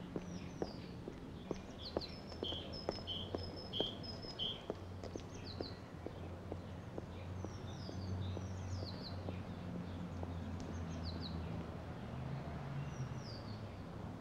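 Songbirds chirping, with short repeated notes and quick descending whistles. Footsteps on a path tick steadily through the first half, over a low steady hum.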